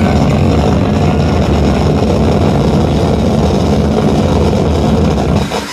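Loud live noise music: a dense, steady, low rumbling wall of amplified noise that drops away just before the end.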